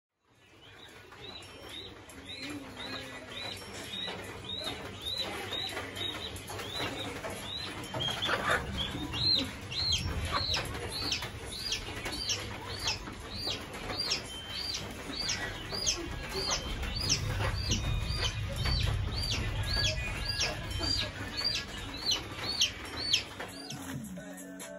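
A young chick peeping over and over, about two high, arching peeps a second, stopping just before the end.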